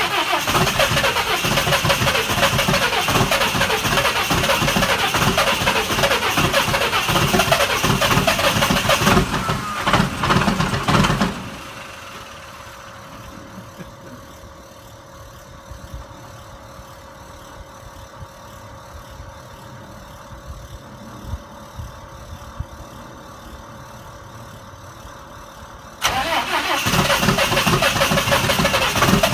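Cummins 24-valve inline-six turbodiesel running through a vertical exhaust stack shortly after a cold start, loud and dense. About eleven seconds in the engine sound cuts off suddenly, leaving a faint steady hum for about fifteen seconds, and then it comes back abruptly near the end.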